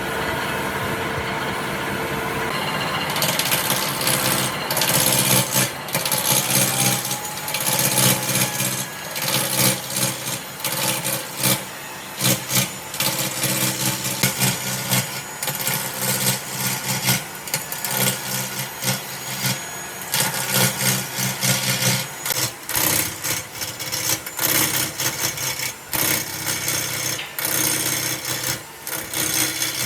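Electric power tool running steadily with a motor hum. From about three seconds in, irregular scraping and cutting noise of the tool working wood is added.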